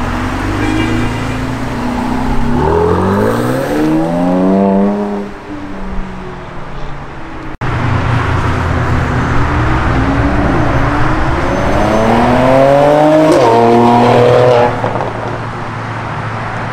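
Mercedes-AMG coupe's engine under hard acceleration as it drives away and along the road, its pitch rising in two long runs. The second run is the loudest and ends suddenly as the driver lifts off, near the end.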